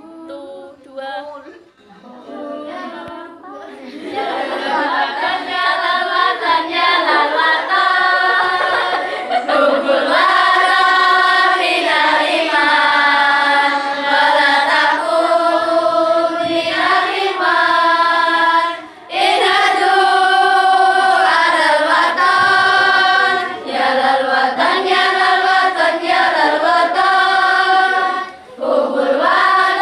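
A group of girls singing together without instruments. The singing starts soft and scattered, then comes in loud about four seconds in, with two short breaks between phrases.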